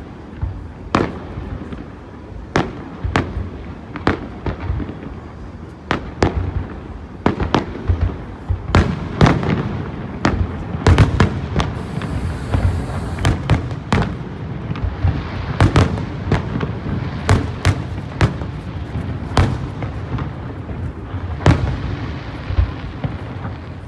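Fireworks display: an irregular string of sharp bangs and crackles over a continuous low rumble of bursting shells, growing denser about eight seconds in.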